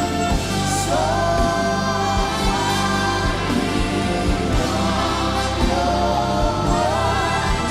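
Live gospel worship music: voices sing sustained, gliding lines over a band with steady bass notes and short drum hits.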